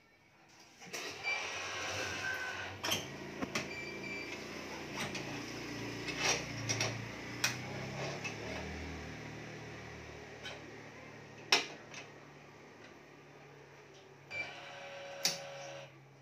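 Electronic badminton stringing machine at work: its motorised tension head hums as it pulls the string to tension, amid clicks and rattles of the clamps and the string being handled. Sharp clicks come about eleven and a half and fifteen seconds in.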